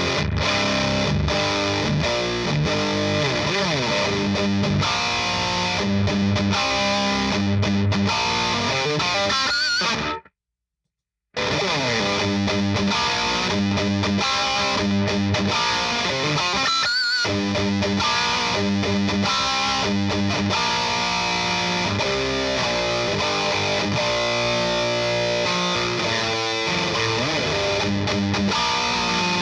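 Distorted electric guitar riffing through a This Heavy Earth Black Mass preamp on its high-gain voice, heard from a miked isolation cab loaded with a Vintage 30 and a Creamback. The playing stops dead for about a second around ten seconds in, then carries on.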